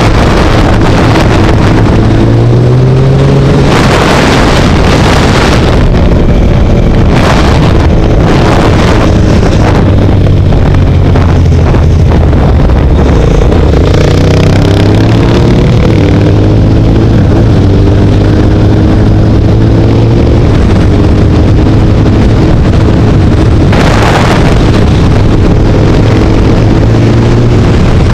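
Motorcycle engine running under way, its note climbing and dropping several times with throttle and gear changes. Wind rushes over the microphone in a few short gusts.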